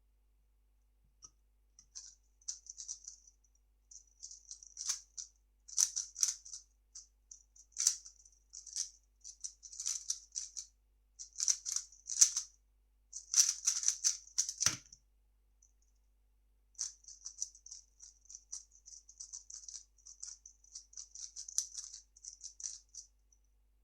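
3x3 speedcube being turned rapidly, a fast run of light plastic clicking and rattling in quick flurries. About 15 seconds in there is a single low thump, then after a short pause the turning clicks start again.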